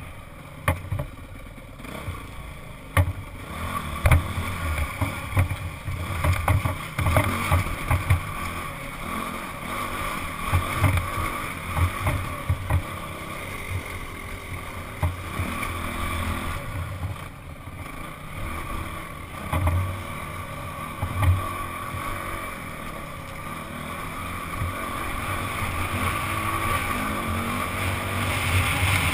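Honda CRF dirt bike engine running under a rider's helmet camera over rocky, sandy trail, with frequent knocks and thumps from the bumps. The engine gets louder over the last several seconds as the bike speeds up on smoother dirt.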